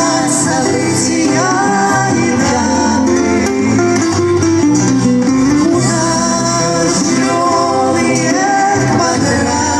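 Live acoustic song: guitar accompaniment with a singing voice carrying the melody.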